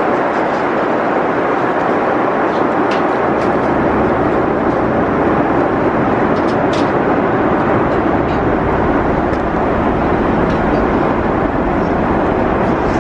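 Steady rushing cabin noise of a jet airliner: engine and airflow noise heard from inside the passenger cabin, with a few faint clicks.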